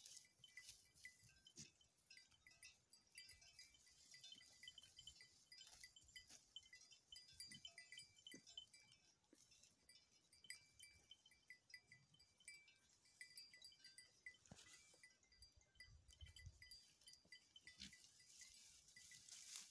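Near silence with faint, high tinkling on and off throughout, and a brief low rumble a little past halfway.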